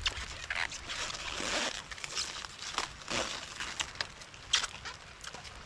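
Irregular rustling and crinkling, with a few short clicks and knocks.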